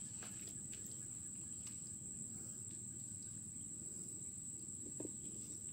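Swamp insects making a steady, unbroken high-pitched drone over a low background rumble, with one short low call about five seconds in.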